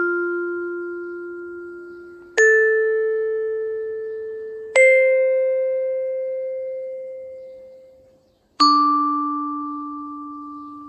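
Slow music of single struck bell-like notes, one every two to four seconds, each ringing and slowly fading, with a brief gap before the last one.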